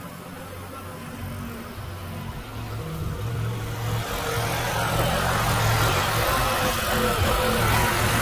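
Small gasoline engine of a walk-behind shed mover running steadily, growing louder about halfway through.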